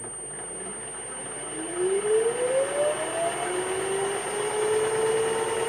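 Toyota Prius hybrid transaxle spun up by its electric motor under inverter control: an electric whine climbs in pitch for about two seconds, then settles into a steadier whine that keeps rising slowly, with gear and shaft running noise. A thin steady high tone runs underneath. The gearbox is being run with, in the owner's words, chances are no oil in it.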